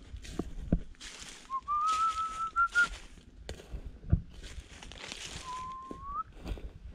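A man whistling two notes through pursed lips: a longer held whistle that creeps slightly upward, then a shorter one that rises at its end. Between them, leaves crunch and rustle underfoot as he walks.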